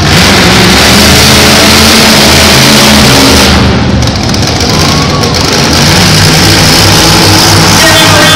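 Monster truck engine revving very loudly as the truck drives and turns, easing off briefly about three and a half seconds in and then revving hard again.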